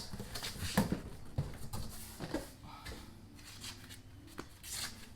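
Cardboard shipping box being handled and opened: scattered light knocks and rustles of cardboard, a few seconds apart.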